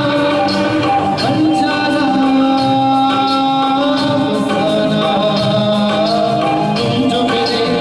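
A man singing a song into a microphone over a karaoke backing track, holding long notes over a steady percussion beat.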